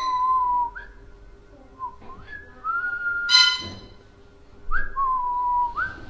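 Pet parrot whistling a series of clear tones that glide upward and hold, with a short harsh squawk about three seconds in.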